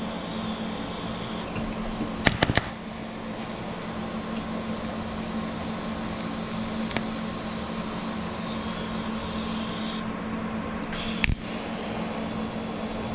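TIG welding a 10-gauge steel reinforcement plate onto a lower control arm: a steady hum and hiss while the arc burns, broken by a cluster of sharp crackles about two seconds in and another just after eleven seconds.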